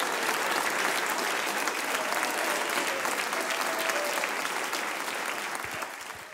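Studio audience applauding, the clapping fading away near the end.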